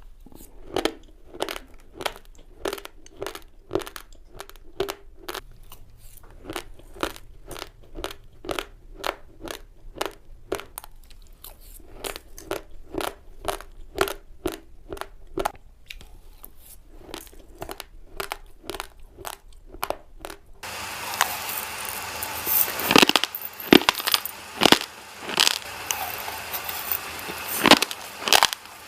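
Raw, uncooked rice grains being chewed close to the microphone: sharp crunches about twice a second. About two-thirds of the way in the sound changes abruptly to a hissier recording with louder, more irregular crunches.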